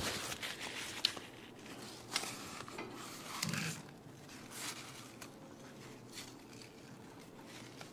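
Faint handling sounds as a lathe's three-jaw chuck is turned slowly by hand, driving the bevel gear of a bushing oil-grooving tool: soft metal rubbing, with light clicks about one and two seconds in.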